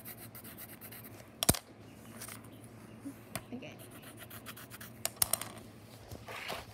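Scribbling on paper while coloring, in quick back-and-forth scratching strokes, with a few sharp taps, the loudest about a second and a half in.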